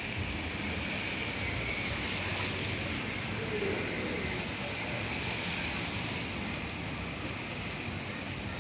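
Steady hiss of rain on a city street, with some wind on the microphone.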